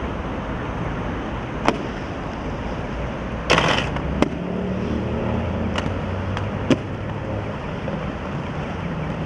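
Inline skates landing and rolling on stone and pavement: several sharp clacks of skates hitting the ground, and a short scraping rush about three and a half seconds in. Steady city traffic rumble underneath.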